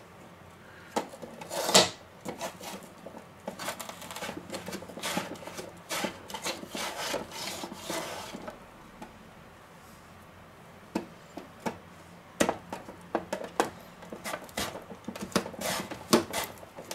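Peeled potato pushed back and forth in its holder across a plastic mandoline slicer's blade: a run of short rasping strokes, with a sharp knock about two seconds in and a pause of about two seconds around the middle.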